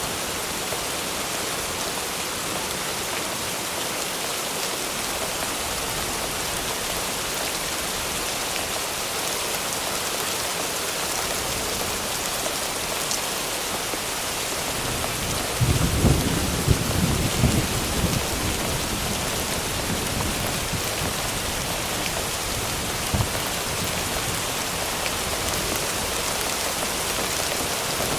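Thunderstorm sound effect: steady heavy rain throughout. Just past halfway a thunderclap cracks and rumbles for about two seconds, and a single short crack comes a few seconds later.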